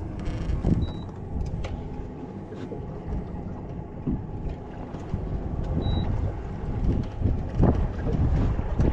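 Uneven low rumble aboard a small open fishing boat at sea, with a few light knocks and a short high beep about a second in and again about six seconds in.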